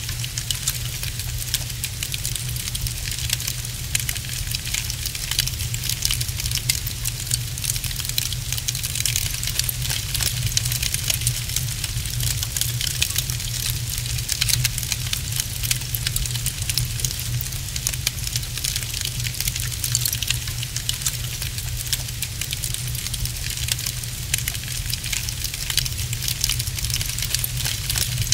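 Wood fire crackling in a fireplace: a dense, steady stream of small pops and crackles over a constant low rumble.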